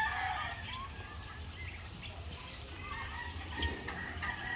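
Farmyard fowl calling: the tail of a rooster's crow right at the start, then scattered fainter clucks and bird calls.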